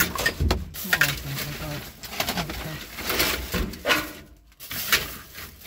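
Clear plastic bags crinkling and rustling, with hard plastic coat hangers and other items knocking and shifting as a bin of shop waste is rummaged through by hand. A low voice murmurs briefly at times.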